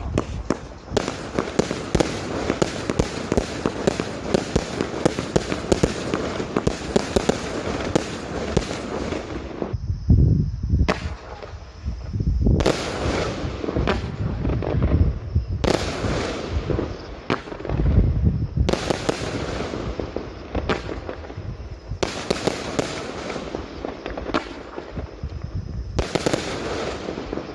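A 20-shot consumer fireworks cake going off: a dense, fast crackle of bursting stars, with deeper booms about ten and eighteen seconds in after short lulls.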